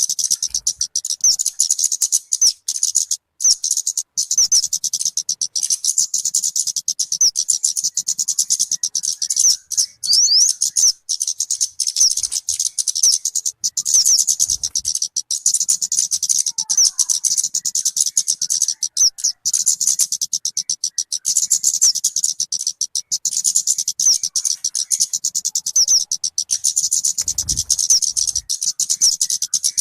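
Talokan (kemade) bird singing: a rapid, continuous stream of high chirps and trills with only brief gaps.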